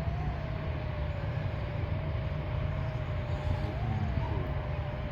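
FPV racing quadcopter's brushless motors and propellers whining, the pitch holding steady and rising briefly a few times with throttle changes, over a rumble of wind and prop wash.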